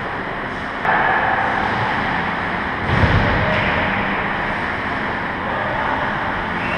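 Ice hockey play on an indoor rink: skates scraping and carving the ice, heard as a steady noisy rush, with a dull thump about three seconds in.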